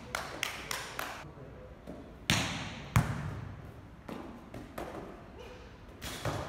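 Volleyball practice sounds: a string of quick knocks from footsteps and the ball, with a single loud ball impact about three seconds in.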